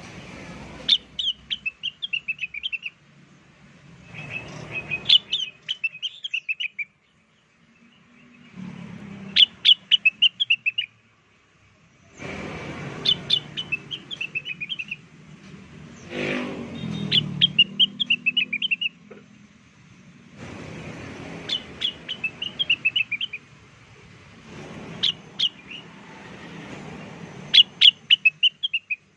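Blue-winged leafbird (cucak wilis) calling: a quick run of sharp chirps stepping down in pitch, repeated about every four seconds, used as a lure call.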